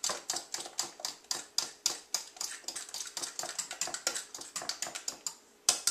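A utensil clicking against a glass mixing bowl as pancake batter is stirred briskly, about four strokes a second, to beat out the lumps. The strokes stop about five seconds in.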